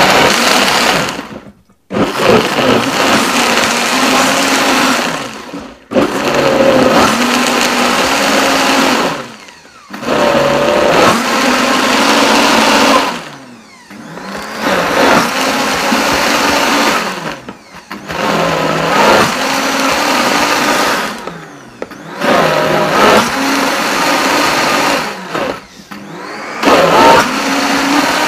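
Optimum G2.1 high-speed blender running its sauces preset on a thick curry-sauce mixture, the motor speeding up and easing off in cycles. It briefly drops almost to quiet about every four seconds before surging again.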